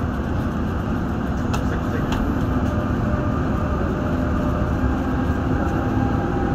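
Cabin noise inside a Dubai Metro train running between stations: a steady rumble of the car rolling on the track, with a low even hum and two faint clicks about a second and a half and two seconds in.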